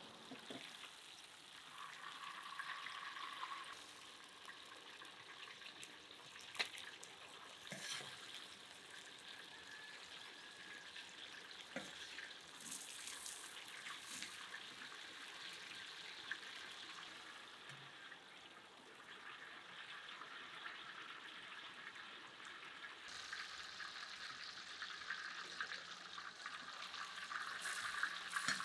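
Chicken pieces frying in oil in a large pan, a faint steady sizzle with a few sharp clicks from utensils.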